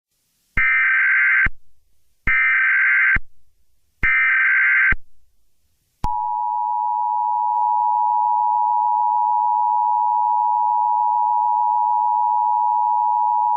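Emergency Alert System tones: three short bursts of warbling SAME header data tones, each just under a second, then from about six seconds in the steady two-tone EAS attention signal. Together they signal the start of an emergency alert broadcast.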